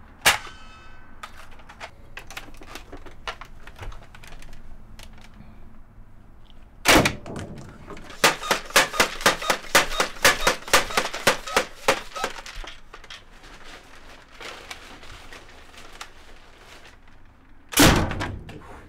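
Toy foam-dart blasters being fired and worked. A sharp shot with a brief metallic ring right at the start, a loud shot about seven seconds in, then a quick run of plastic clicks, about five a second for some four seconds, as the large blaster is handled, and another loud shot near the end.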